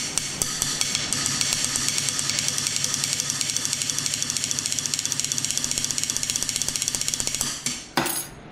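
Mock drum roll tapped with two sticks on an aluminum injection mold: a fast, even run of strokes for about seven seconds, then a single separate hit just before the end.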